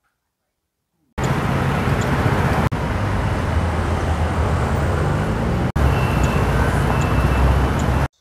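Busy street traffic: cars and motor scooters running and passing at a city intersection, a steady din of engines and tyres that starts about a second in, broken by two very short gaps.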